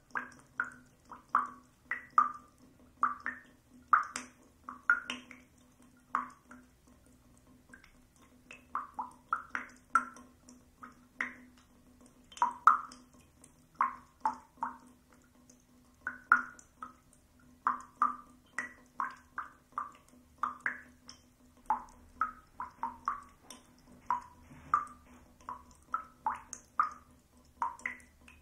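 Dripping faucet: water drops falling into standing water as short pitched plinks, irregular, about one to two a second and varying in loudness, over a faint steady hum.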